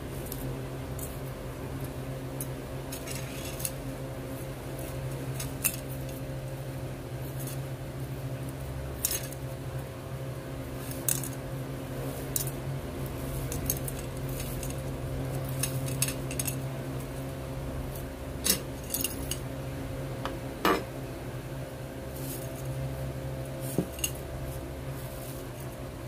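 Scattered light clicks and clinks of a gold chain and a metal utensil against a ceramic bowl as jewelry is brushed clean in soapy water, over a steady low hum. One louder clink about three-quarters of the way through rings briefly.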